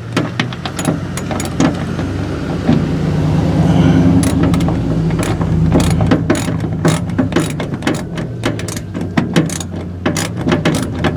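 Ratchet wrench clicking in quick repeated strokes as a nut is tightened down onto a seat-belt anchor bolt. A low steady hum runs underneath, loudest in the middle.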